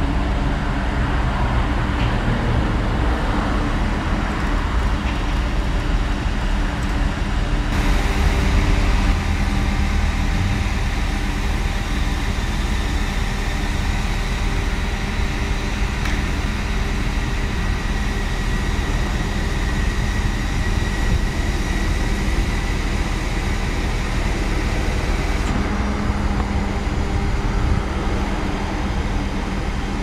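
A crane truck's diesel engine running steadily, keeping the boom's hydraulics powered while a steel column is lowered.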